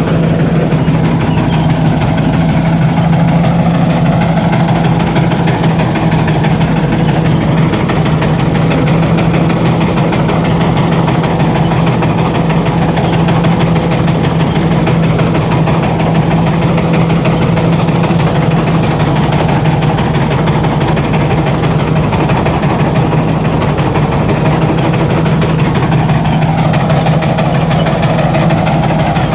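Rice combine harvester's diesel engine running at a steady, unchanging drone, with a thin high whine above it.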